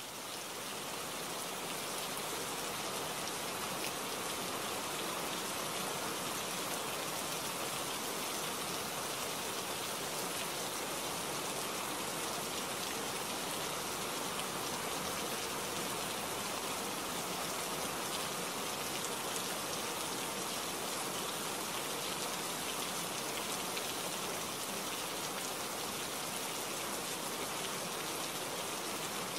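Steady rainfall, an even hiss of many drops with no thunder or single loud events. It fades in over the first second or two, then holds level.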